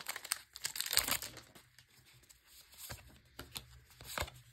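Foil wrapper of a Magic: The Gathering booster pack crinkling as it is handled and torn open, densest for about the first second, followed by a few soft scattered clicks and rustles.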